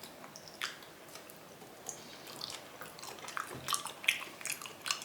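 A person chewing raw chicken: scattered wet mouth clicks and smacks, coming faster in the last second or so.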